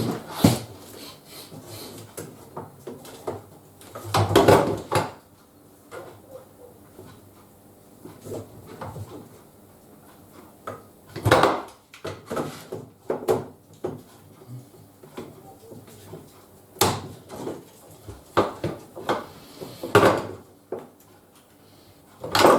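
Irregular clicks, knocks and clatter of hands working with tools and copper pipe fittings during plumbing work, with a handful of louder knocks among quieter handling sounds.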